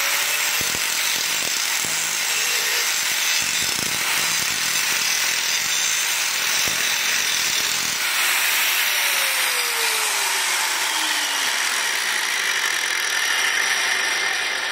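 4.5-inch angle grinder with a grinding wheel, just spun up with a rising whine, grinding steadily against the edge of a steel angle iron to take a bump and burrs off with light pressure.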